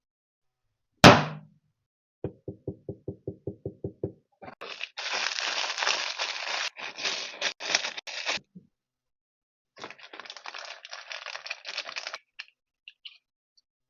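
Unboxing handling noises: one sharp snap about a second in, then a quick run of about a dozen even clicks, then stretches of scraping and rustling from packaging being handled and pulled open.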